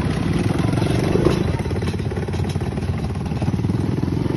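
ATV engine running steadily, a fast even pulsing throughout.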